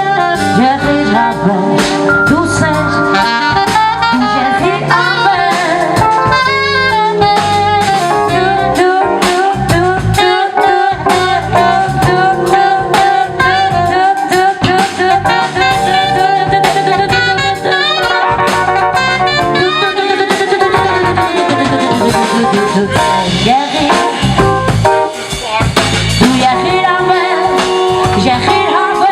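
Live band music: a sustained melody line over a steady drum kit beat.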